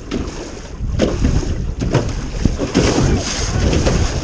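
Strong wind buffeting the microphone in an open jon boat on choppy water, a heavy irregular rumble with scattered knocks and splashes.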